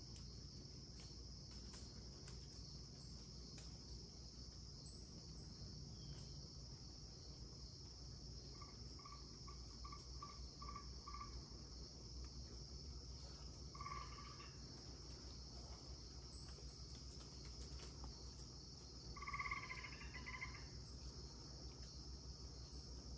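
Steady high-pitched insect chorus, with a frog calling over it: a run of about six short notes around nine to eleven seconds in, a single note near fourteen seconds, and a louder, longer call near twenty seconds.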